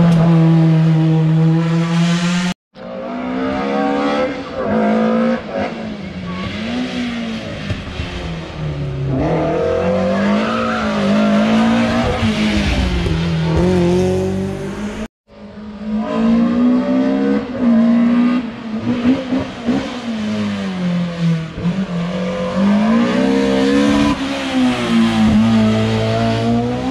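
Racing car engines revving hard uphill, the pitch climbing and dropping again and again with gear changes and throttle lifts, heard in three separate passes with abrupt cuts between them.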